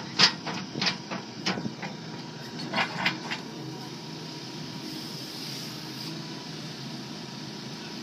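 New Holland B95C tractor loader backhoe's diesel engine running steadily while the arm is worked. A string of sharp knocks and clanks comes in the first three seconds or so, then only the steady engine hum.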